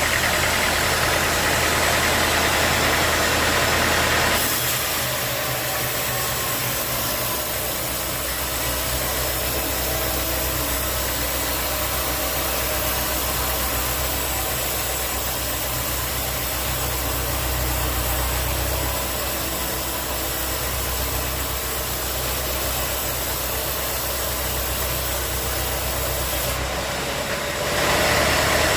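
Sawmill machinery running steadily with an engine hum. It is louder and higher-pitched for the first four seconds, drops to a lower hum, then rises again near the end.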